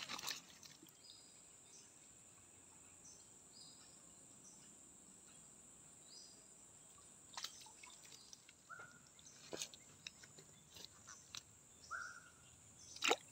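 Quiet tropical forest ambience: a steady high insect drone, with short bird chirps repeating about every second and a half, two lower bird notes later on, and a few soft clicks.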